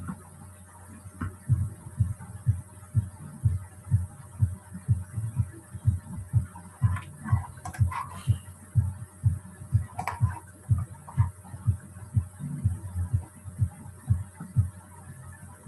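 A steady run of soft, low thumps, about two to three a second, with a few sharper clicks, like computer keys or a mouse, around the middle.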